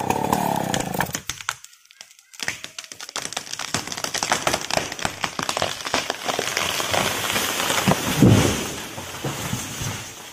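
Chainsaw running through the cut of a large mahogany trunk, stopping about a second in. After a short lull the felled tree cracks and crashes down through the surrounding branches in a long run of snapping and crackling, with a heavy low thud about eight seconds in as it hits the ground.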